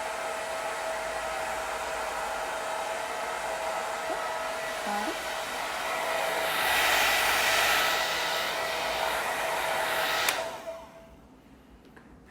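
Hand-held hair dryer blowing on hair with a steady whine, louder for a couple of seconds past the middle, then switched off about ten seconds in and winding down briefly.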